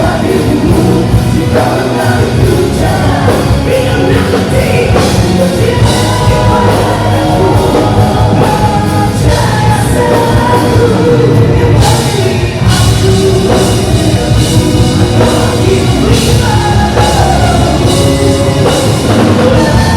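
Rock band playing live, a singer over drums and guitars, loud and steady throughout.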